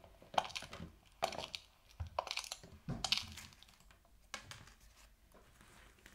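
Light taps and rustles, roughly one a second: small plastic dolls and toys being handled and set down on a hard surface.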